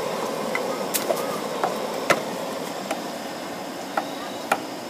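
A knife dicing a block of Spam on a cutting board: several irregular light taps of the blade striking the board, over a steady rushing background noise.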